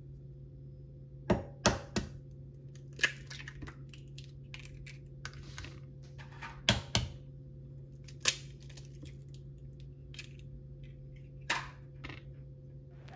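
Eggs cracked by hand against the rim of a plastic container: sharp taps in short groups of two or three, with softer clicks of shell and plastic between.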